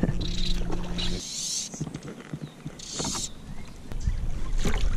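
A boat's outboard motor hums steadily, then cuts off about a second in. After that there are light splashes and scattered clicks as a hooked trout is played at the surface beside the landing net.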